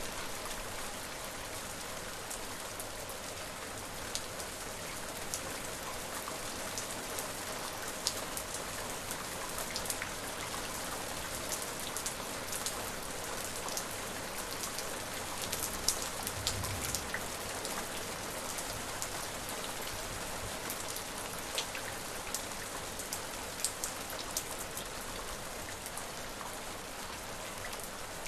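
Steady rain falling, with a constant hiss and many individual drops ticking sharply on a hard surface; a soft low thump about sixteen seconds in.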